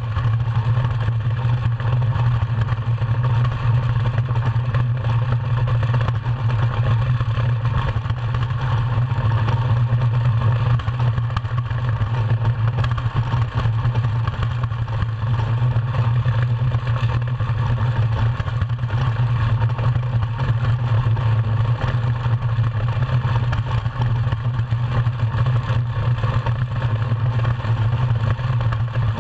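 Iceboat sailing at speed: the steady low rumble of its runners over the ice, with a hiss over it, carried through the hull to a camera mounted on it.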